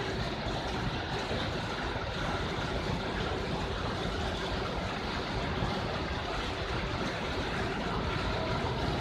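Heavy rain pouring down, a steady dense hiss of water on the wet pavement.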